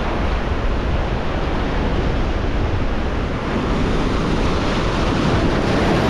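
Steady ocean surf washing against the shore, with wind rumbling on the microphone.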